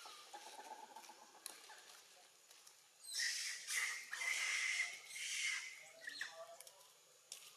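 A plastic bag crinkling as a macaque handles it and picks food from it. It is loudest in a burst starting about three seconds in and lasting nearly three seconds, with softer rustles before and after.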